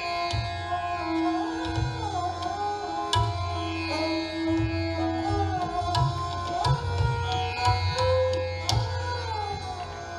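Sarangi playing a slow, gliding bowed melody in raag Shree over a steady tanpura drone, with tabla accompaniment: deep bayan strokes that bend in pitch and sharp dayan strokes.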